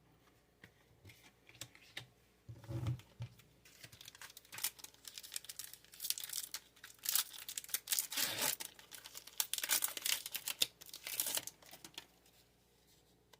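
Foil booster-pack wrapper of Pokémon cards crinkling and being torn open by hand, in irregular crackling bursts that are loudest in the second half.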